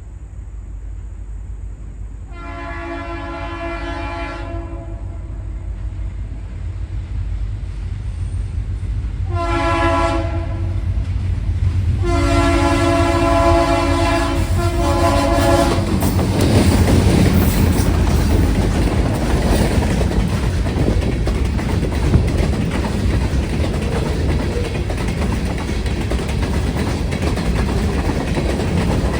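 Locomotive air horn sounding three blasts, the last held longest, as the train approaches. The train then passes close by: a loud, steady rumble of the engine with wheels clacking over the rail joints.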